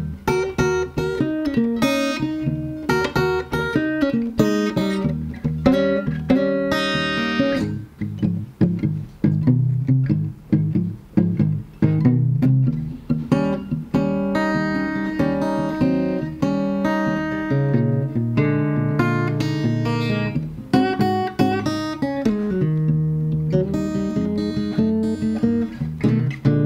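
A PRS SE parlor-size acoustic guitar being played, with picked notes and strummed chords that ring on steadily. Around a third of the way through the notes come more separately, with short gaps between them.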